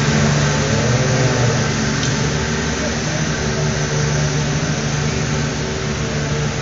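Engine of a 140-horsepower pulling lawn tractor running with a steady drone.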